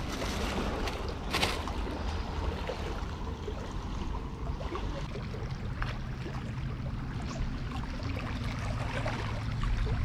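Gentle sea water lapping at the rocky shoreline under a low, steady wind rumble on the microphone. A plastic bread bag crinkles briefly about a second and a half in.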